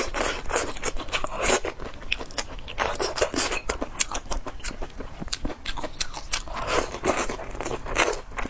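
Close-miked chewing of spicy squid tentacles, a dense run of irregular mouth clicks and smacks with no pause.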